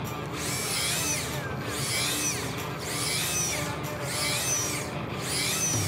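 A Shimano electric jigging reel's motor winding in auto-jerk mode. It whines up and falls away in regular pulses, about one a second.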